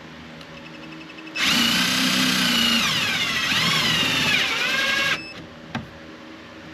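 Power drill driving a screw into plastic for about four seconds, its motor whine sagging and wavering in pitch as the screw bites, then stopping abruptly; a single sharp click follows.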